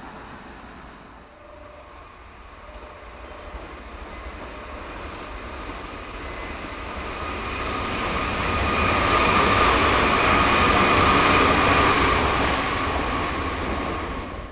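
Nankai 50000 series Rapi:t limited express electric train approaching and passing at about 104 km/h: rail and running noise swelling over several seconds with a steady high whine, loudest near the end, then cut off abruptly.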